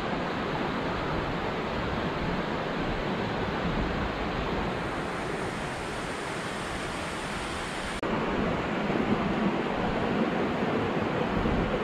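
Mountain stream rushing over rocks, a steady rush of water that turns louder and fuller about eight seconds in.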